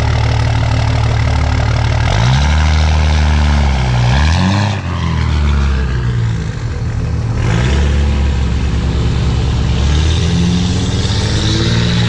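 Straight-piped 5.9 L Cummins turbo diesel in a 2006 Dodge Ram revving up and down several times as the truck spins its tyres in loose sand and pulls away. The revs climb again near the end.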